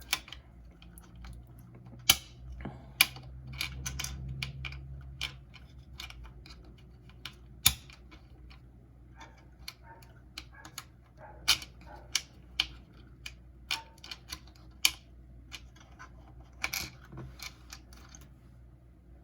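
Akko double-shot plastic keycaps clicking and tapping: irregular sharp plastic clicks, a second or more apart. A low hum sits under the first few seconds.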